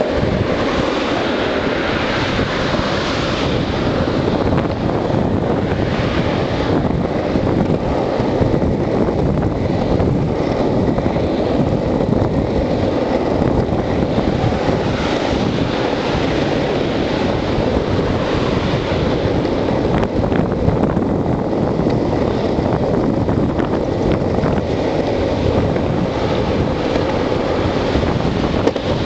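Wind noise on the microphone over the steady roll of longboard wheels on asphalt while riding.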